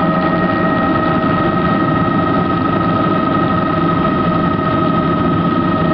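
Helicopter engine and rotor running steadily, heard from inside the cabin: a loud, constant drone with a steady high whine over it.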